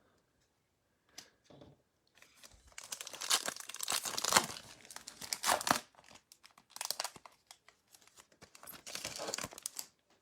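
A foil trading card pack wrapper being torn open and crinkled, in one long stretch of rustling followed by two shorter bursts.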